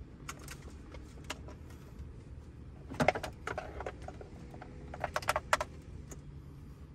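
Plastic wiring-harness connectors and loose cables clicking and rattling as they are handled and plugged into a truck's dash wiring. The clicks are scattered, with a cluster about three seconds in and a quick run of sharp clicks around five seconds.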